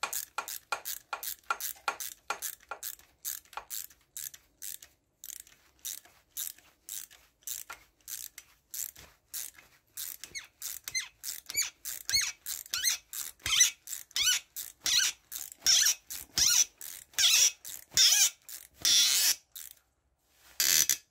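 Small hand ratchet clicking in quick short strokes, about two or three a second, as a cam-cap bolt is run down into a motorcycle cylinder head. The bolt had been binding; its thread has just been chased with a tap and oiled. The strokes get louder and squeakier from about halfway through.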